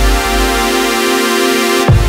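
Background electronic music: held synth chords over a deep bass, with a heavy bass hit near the end.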